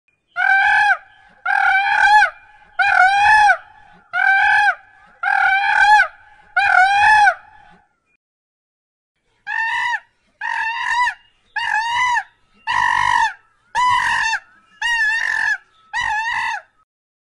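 Hamadryas baboon giving a run of short, loud calls, each rising and falling in pitch: six calls about one a second, a pause of about two seconds, then seven more.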